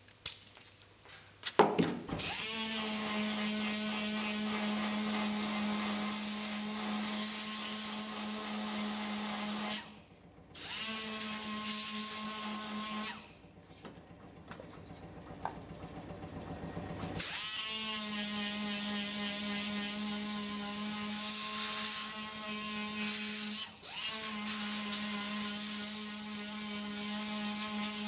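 Small handheld power sanding tool running in spells with a steady high motor hum, sanding the wood around the handle opening of a carved wooden cup. It cuts out briefly about ten seconds in, stops for a few seconds in the middle, and runs again to the end; a single knock comes just before it first starts.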